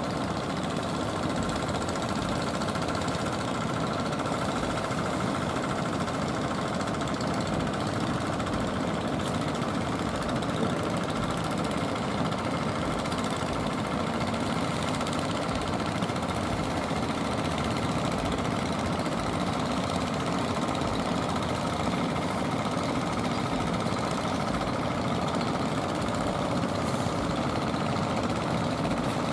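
Motor fishing boats' engines running steadily as the boats cross the surf, a continuous low drone without pauses.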